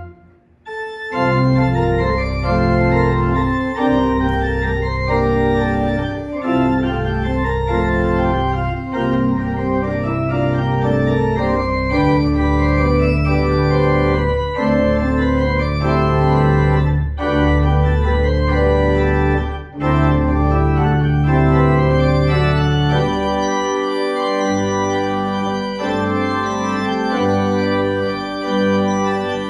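Church pipe organ playing full sustained chords over deep pedal bass notes, the chords changing every second or two after a brief pause at the start. Near the end the long bass notes drop away and short repeated bass notes take their place.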